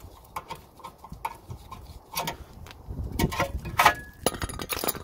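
Rear brake caliper mounting bracket and its worn pads being worked loose and pulled off the disc by hand: a run of light metal clicks, turning into louder, quicker clanks and rattles in the last few seconds.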